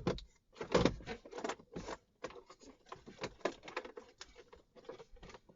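Irregular light clicks and rustling of hands working plastic wiring connectors into the back of a Honda instrument cluster.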